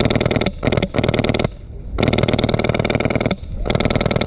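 HPA-powered airsoft light machine gun (Polarstar F2 engine in an Mk48-style gun) firing full-auto in several short bursts with brief pauses between them; the longest burst lasts a little over a second.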